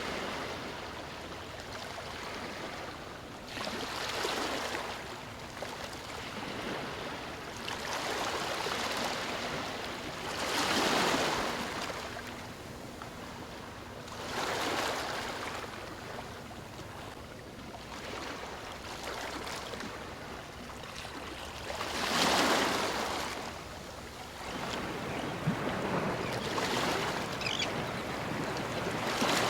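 Ocean waves crashing in a continuous wash of surf, swelling and fading every few seconds. The biggest break about eleven and twenty-two seconds in.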